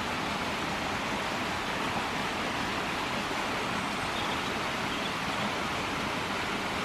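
A stream of water rushing steadily, an even hiss.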